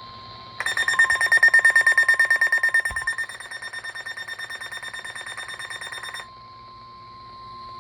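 NOAA Weather Radio's steady 1050 Hz warning alarm tone, sounding ahead of a flood warning. From about half a second in until about six seconds in, a weather-radio receiver's own alarm beeps over it in a rapid pulsing pattern, loud at first and weaker after about three seconds.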